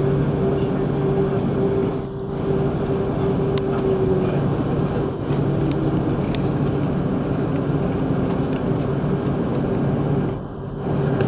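Airbus A330-300 jet engines heard from inside the cabin while taxiing: a steady rush with a low hum and a higher held tone, dipping briefly a few times.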